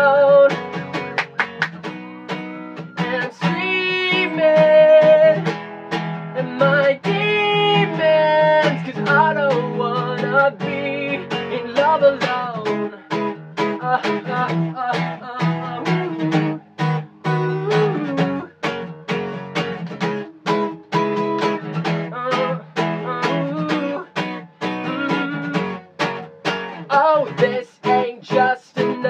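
Acoustic guitar strummed steadily, with a man singing over it at times.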